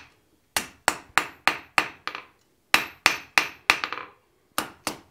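Hand hammer striking a small steel bar on the anvil face, blows about three a second in three short runs with brief pauses between, each blow ringing briefly on the anvil.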